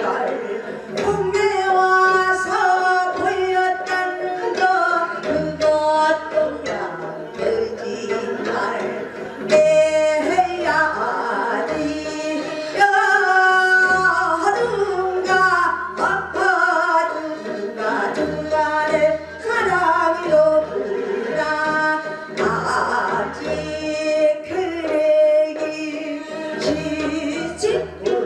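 A woman trained in pansori singing a Korean folk song (minyo) into a microphone, with long, bending held notes, over an accompaniment track with a steady low beat.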